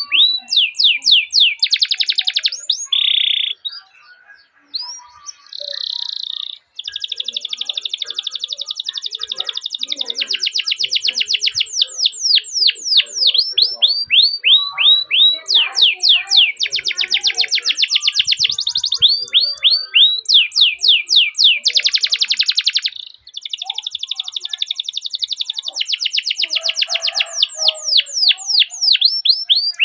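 Domestic canary singing a long song: runs of quick falling chirps alternating with fast rolling trills, with a short break about four seconds in.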